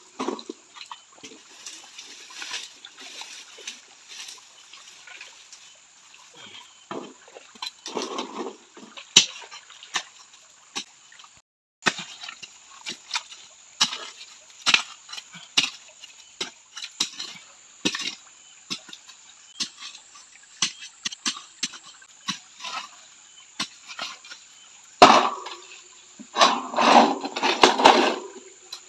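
A small hand shovel scraping and digging into wet sandy mud mixed with stones, with scattered short clicks and wet scrapes. A louder run of digging comes near the end.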